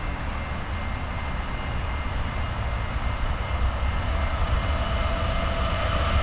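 BNSF freight train approaching: a low rumble that grows steadily louder, with steady high tones coming up over it in the last couple of seconds.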